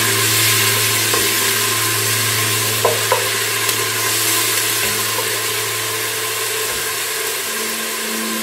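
Ginger-garlic paste sizzling in hot oil in a stainless steel saucepan while a wooden spatula stirs it, with a couple of light knocks about three seconds in. A steady low hum runs underneath and fades near the end.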